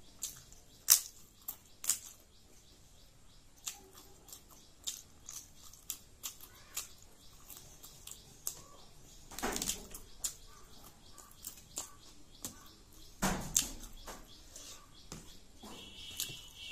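Close-miked eating sounds: sharp crunches as a crisp fried papad is bitten and chewed in the first two seconds, then scattered small clicks of chewing and of fingers mixing rice on a plate. Two longer, louder noisy sounds come about halfway through and a few seconds later.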